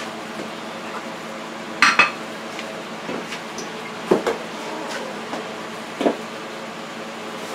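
Kitchen dishes and utensils clattering and knocking: a sharp metallic clatter about two seconds in, then duller knocks about four and six seconds in, over a steady background hum.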